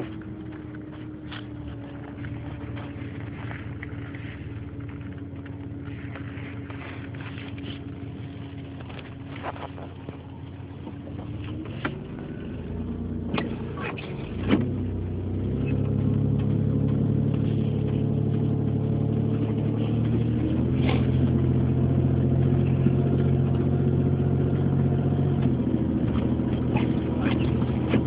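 Four-wheel-drive vehicle's engine running while driving on snowy roads, steady at first, then rising in pitch and getting louder about halfway through as it pulls harder, holding there. Sharp clicks are heard now and then.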